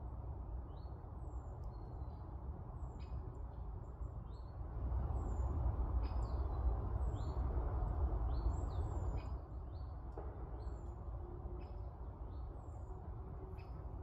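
Small forest birds calling with many short, high chirps and thin descending notes scattered throughout, over a steady low rumble that swells louder in the middle.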